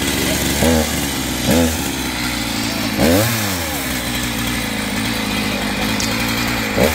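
Two-stroke chainsaw idling, its engine revved in four short blips that rise and fall in pitch, the third the longest, about three seconds in.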